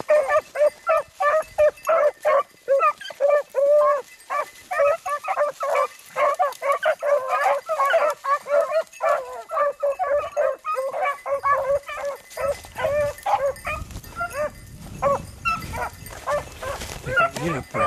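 A pack of beagles baying on a rabbit's scent: many short, overlapping barks and yelps in quick succession, several dogs giving tongue at once. A low rumble runs underneath in the last few seconds.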